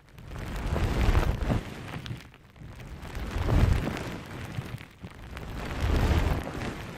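A soft, squishy konjac puff sponge or sticky squeeze toy being squeezed and pressed close to the microphone. It gives three slow, swelling squishes about two and a half seconds apart, each a muffled low thud with a rustling hiss.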